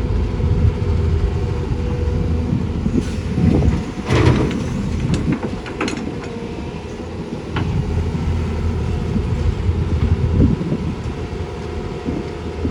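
Heavy diesel engines of an excavator and dump trucks running steadily. A loud clattering burst comes about four seconds in, followed by a few sharp clicks.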